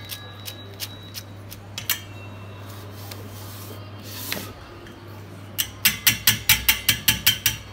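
Metal mesh strainer of soaked flattened rice knocked against a steel bowl to shake the water out: a few light clicks, then about two seconds in, near the end, a fast run of about a dozen sharp metal taps, six or seven a second.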